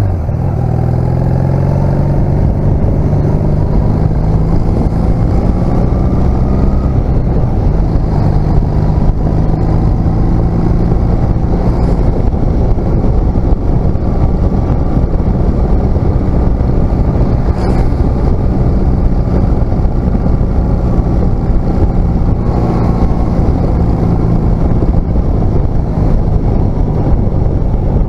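1996 Honda CMX250C Rebel's 234 cc air-cooled parallel-twin engine pulling away, its pitch rising over the first couple of seconds, then running steadily at cruising speed, heard from the rider's seat over heavy road and wind noise.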